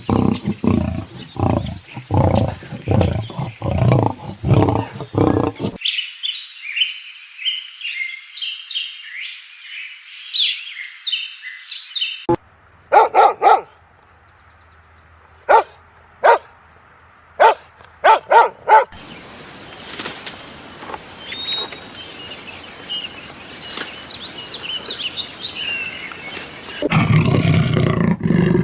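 Several different animal calls in turn. First comes a rapid run of deep, grunting roars. Then high chirping calls, a handful of short sharp calls, and high calls over a steady hiss, with a loud deep roar starting near the end.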